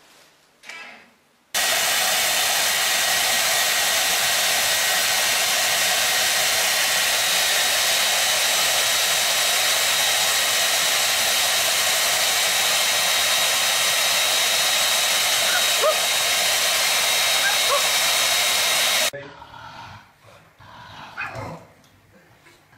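Hand-held hair dryer running, a steady rushing hiss with a thin high whine in it. It switches on about a second and a half in and cuts off suddenly a few seconds before the end.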